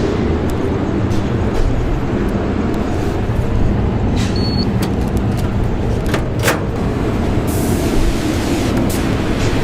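Steady low mechanical rumble, with a couple of short hisses or clicks around the middle.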